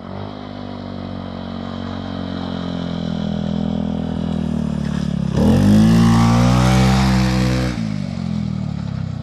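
Custom Honda Zoomer 50cc scooter's single-cylinder four-stroke engine approaching at speed and growing steadily louder. It is loudest for about two seconds as it passes close, starting a little past halfway, then drops off as the scooter slows and turns away.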